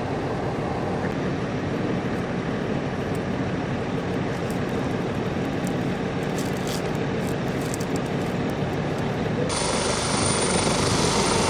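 Steady engine rumble: the drone of emergency vehicles and a search helicopter over the canyon, with no distinct events.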